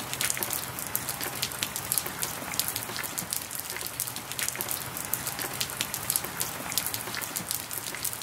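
Steady rain falling on a hard surface: an even hiss dotted with many separate drop ticks.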